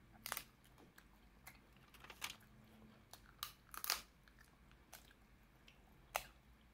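Snow crab leg shell cracking as it is snapped and pulled apart by hand to free the meat. About six separate sharp cracks are spread across a few seconds, some with faint chewing.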